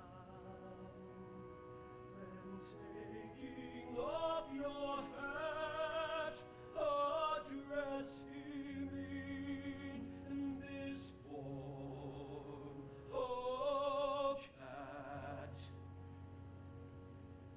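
Music: sustained orchestral chords, joined about four seconds in by a single voice singing in an operatic style with wide vibrato, in phrases a few seconds long. The voice stops about two seconds before the end, leaving the chords.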